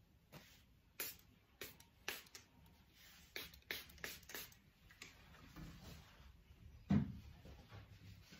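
Finger-pump spray bottle spritzing hair in a series of quick short hisses, about one to three a second, over the first five seconds. A dull thump about seven seconds in is the loudest sound.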